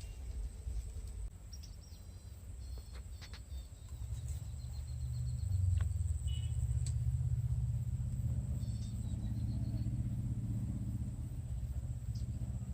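A low rumble that grows louder about four seconds in, with a few short, high bird chirps over it.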